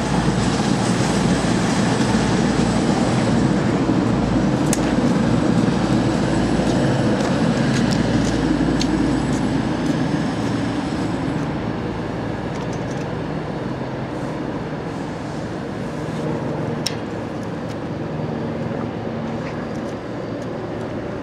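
CrossCountry Voyager diesel multiple unit running out of the station, its underfloor diesel engines giving a loud low rumble for about the first ten seconds. The sound then drops to a quieter, steady rumble as an electric InterCity 225 set approaches, with a few sharp clicks.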